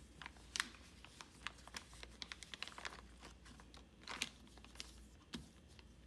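Thin clear plastic bag crinkling in scattered faint crackles as a small limit switch is handled and slid out of it, with a sharper crackle about half a second in and another burst of crinkling near four seconds in.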